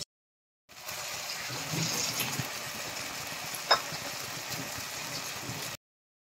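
Fish intestines sizzling in onion-tomato masala in a kadai, a steady frying hiss that starts just under a second in and cuts off near the end. About three seconds in comes a single sharp metal clink, a spatula against the pan.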